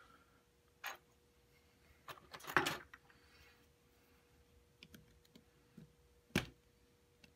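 Small metal lock cylinder handled and worked over a pinning tray: light metallic clicks, a short clattering rattle about two and a half seconds in, and a sharp click near the end.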